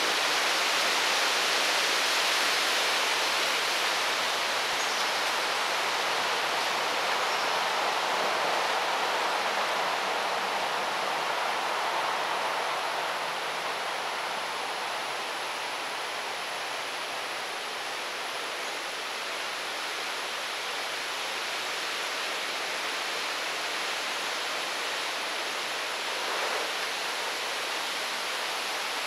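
Steady outdoor background hiss with no distinct events, and a faint thin high tone held above it.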